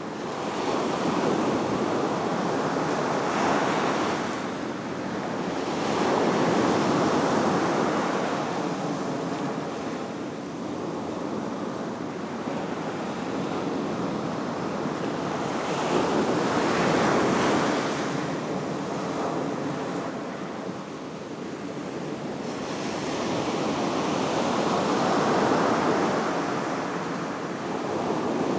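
Surf breaking on a sandy beach and washing up the shore, a steady rushing hiss that swells and eases with each wave, the louder surges several seconds apart.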